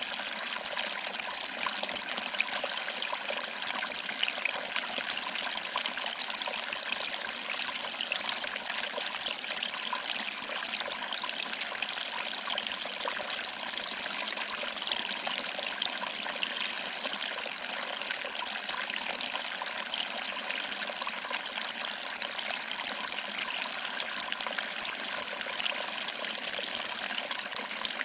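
Small waterfall: water trickling over rocks and splashing into a small pool, a steady even hiss of running water.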